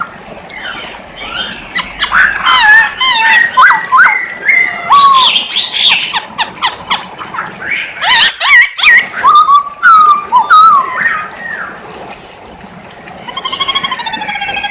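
A black-throated laughingthrush (poksay Hongkong) singing hard, in a varied run of loud whistled notes that glide up and down, mixed with sharp clipped notes. The song pauses briefly about two-thirds of the way in, then picks up again with a quick series of repeated notes near the end.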